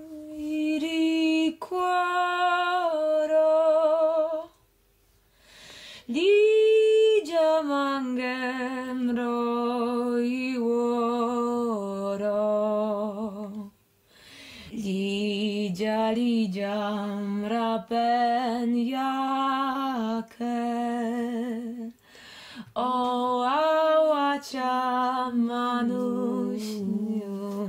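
A woman's voice singing a slow, ornamented Romani halgato melody unaccompanied, in long phrases separated by short breaths, with wavering held notes.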